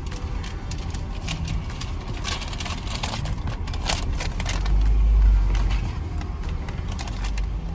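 Car interior noise of engine and tyres as the car moves slowly along the drive-thru lane, a steady low rumble that swells briefly about five seconds in.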